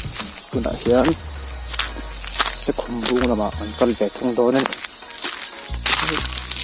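Steady high-pitched drone of insects in the forest, with a person's voice speaking briefly twice and scattered short clicks.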